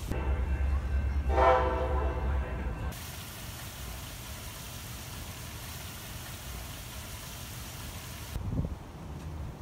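Train horn blowing for about a second over a deep rumble from the train. Then a steady hiss of outdoor background noise.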